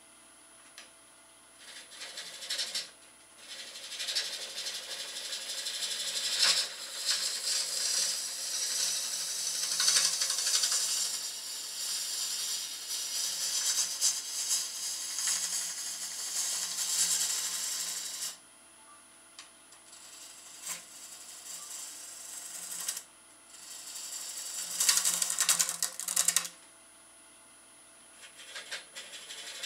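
A hand-held turning tool cutting the end grain of a cherry bowl blank spinning on a wood lathe: a crackling, hissing shear as shavings peel off. It comes in bouts, one long cut of about sixteen seconds, then shorter cuts after brief stops, over the faint steady hum of the lathe.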